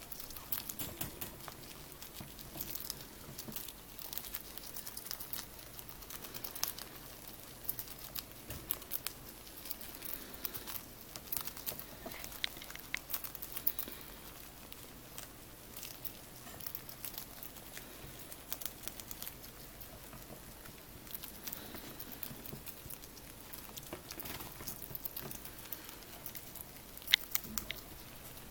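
Pet rats crunching mealworms and moving about on the bedding: many small, irregular crunches, clicks and rustles, with one sharper click near the end.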